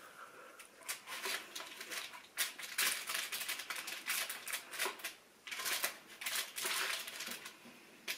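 Irregular rustling and scraping from hands working at a kitchen counter, in short bursts of a fraction of a second each, more than a dozen of them.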